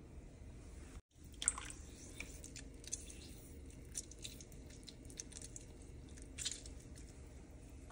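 Lemon wedge squeezed by hand over a pan of melted butter, juice dripping into the hot, bubbling butter with scattered sharp crackles and a wet squish. The sound drops out for a moment about a second in.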